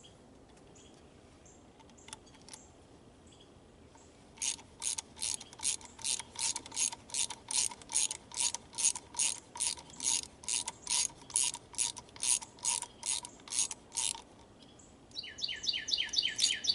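Ratchet wrench clicking at an even pace, about two and a half clicks a second for some ten seconds, while the bolts of an ignition coil assembly are run down evenly to draw it onto the spark plugs.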